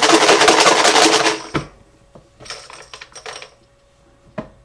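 Many small hard pieces rattled hard in a container for about a second and a half, mixing the numbers for a raffle draw, then a few softer rattles and a single click near the end.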